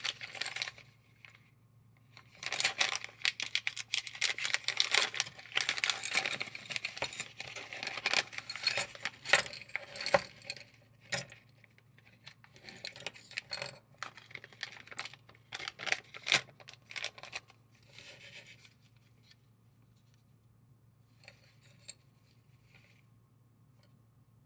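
Plastic pouch and crumpled paper towel crinkling and rustling as they are handled and unwrapped, with small clicks mixed in. Dense for the first half, then in shorter bursts, fading to a few faint rustles near the end.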